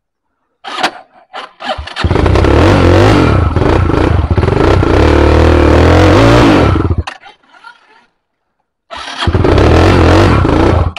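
Dirt trail bike engine: a few sharp clicks, then the engine runs loudly about two seconds in, revving unevenly for about five seconds before cutting off abruptly. After a short pause it runs loudly again near the end and stops just as suddenly.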